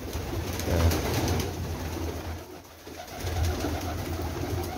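Domestic pigeons cooing in the loft, low coos coming and going with a brief lull about halfway through.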